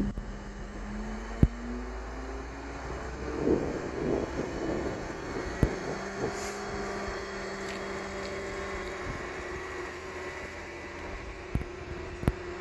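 Railway station ambience: a train's steady mechanical hum, with a few sharp clicks.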